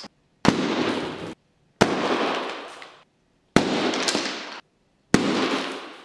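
Four toy balloons popping in quick succession, each a sharp bang followed by about a second of fading rushing noise that cuts off abruptly.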